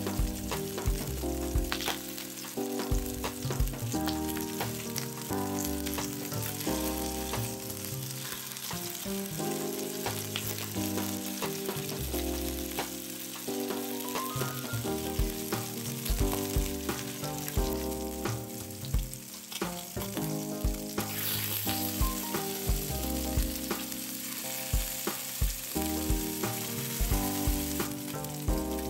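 Salmon pieces searing in olive oil in a hot frying pan, sizzling steadily, under background music with a steady beat.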